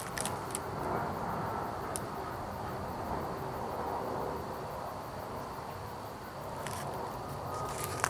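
Steady outdoor background noise with a few faint clicks.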